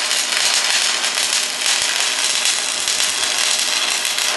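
Stick-welding (shielded metal arc) arc burning steadily: a flux-coated electrode crackling and hissing against the steel plate. The arc breaks off suddenly at the very end.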